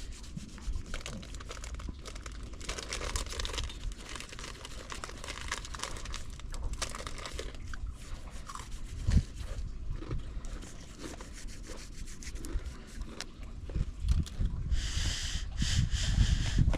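Crinkling and rustling of small objects being handled close by, with a few light knocks. A louder scratchy rustle comes near the end.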